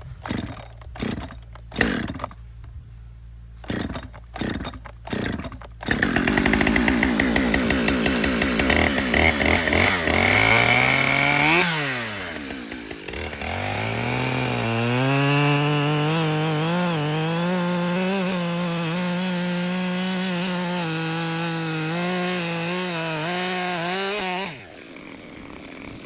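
A series of sharp knocks, then a two-stroke chainsaw starts up and runs at high revs. About halfway through its pitch dips and climbs back, and it runs at a steady high speed until it stops near the end.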